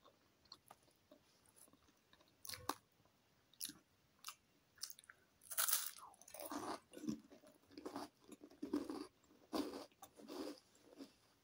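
Close-up eating sounds: small mouth clicks and soft chewing, then a loud crunchy bite into a cheese twist stick a little past halfway, followed by regular crunchy chewing, a crunch a little more than once a second.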